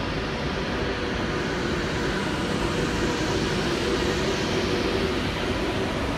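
Class 390 Pendolino electric train running slowly alongside the platform: a steady hum and rumble with a low drone, starting abruptly.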